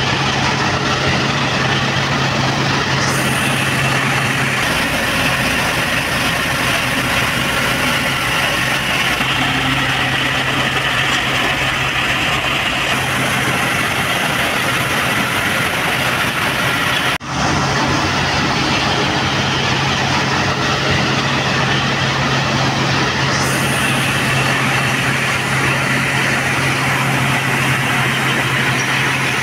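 Shaft-driven threshing machine running at steady speed while crop is fed in, driven by a Fiat 640 tractor's engine working under a steady load. It is a constant hum under a dense, even rush of threshing noise, with a brief drop-out about halfway through.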